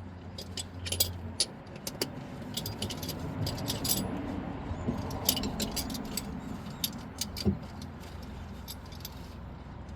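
Small metal tools or parts clinking and jingling in irregular bursts, over rustling and scraping as someone works by hand.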